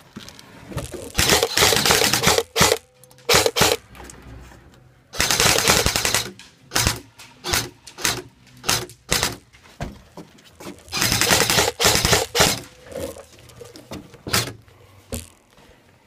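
Airsoft rifle firing: three full-auto bursts of about a second and a half each, with single shots cracking off between them.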